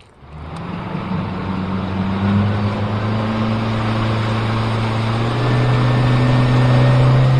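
Boat motor running under way, its low hum climbing slowly in pitch and level over a steady hiss.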